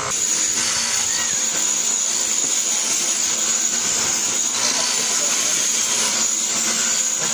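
Bench grinder running steadily as a lathe tool bit is held against the grinding wheel, giving a continuous high hiss of metal being ground.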